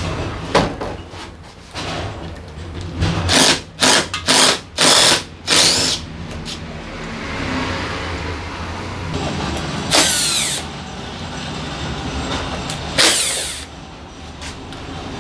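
Short loud hissing bursts from a workshop tool, about five in quick succession a few seconds in and two more later, over a steady low hum.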